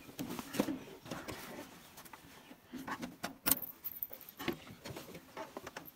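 Rustling and scattered clicks of handling, with one sharp click about three and a half seconds in, and a keychain jingling as a hand takes hold of the tractor's ignition key; the engine is not running.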